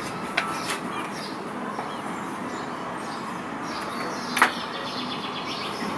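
Steady rushing noise of storm wind in the trees, with birds chirping now and then. A single sharp knock about four and a half seconds in.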